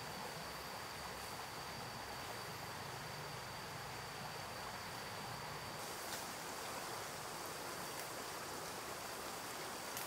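Rainforest ambience: an even hiss with a thin, steady high insect tone, and a few faint clicks.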